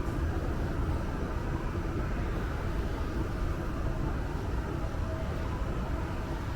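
Steady low rumble of background noise with a faint hum, and no distinct events.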